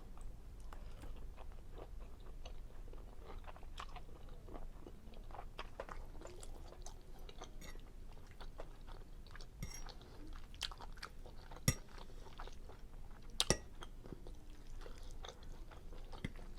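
Close-up chewing of seafood linguine Alfredo with broccoli: a steady run of small wet mouth clicks and crunches, with two sharper clicks, one around twelve seconds in and another about a second and a half later.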